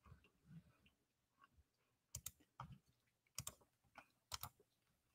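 Faint, sharp clicks at a computer, coming in quick pairs about once a second from about two seconds in, with a few soft low bumps in the first second.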